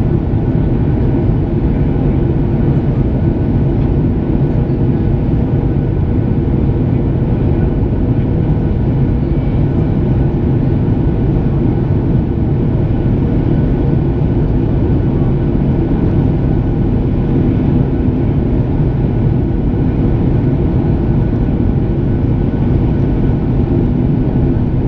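Steady cabin noise of a Boeing 737 heard from inside the cabin: the CFM56 turbofan engines and airflow making an even low rush with a few faint steady tones, with no sudden thump or change.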